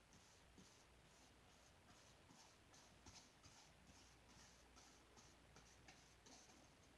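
Faint paintbrush strokes on a small canvas: short, soft brushing swishes, about two or three a second.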